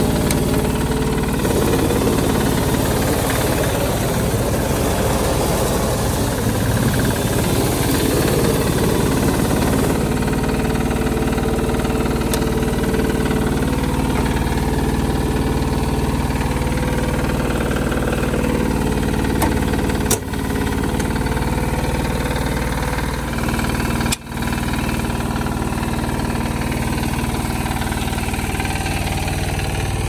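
Star JRB0710 self-propelled baler's engine running steadily. The sound is rougher and busier for about the first ten seconds, then settles to an even hum, with two brief breaks in the sound later on.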